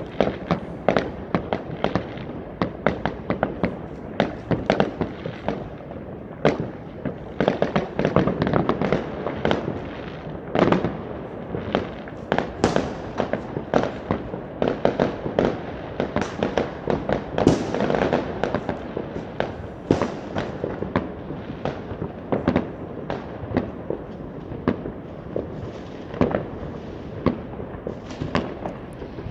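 Fireworks going off all across a city in a dense, unbroken barrage of overlapping bangs and crackles, with sharper single reports standing out every second or so. The loudest bangs come about twelve and seventeen seconds in.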